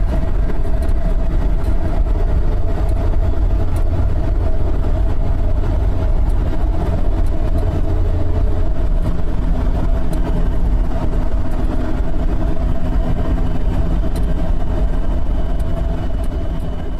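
Suzuki Samurai driving: a steady engine and road rumble, heavy in the low end, with a constant drone over it, beginning to fade out near the end.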